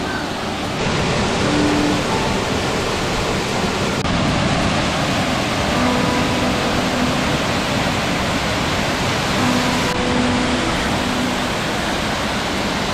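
Small jungle waterfall pouring into a rock pool: a steady, even rush of falling water, shifting slightly where the shots change.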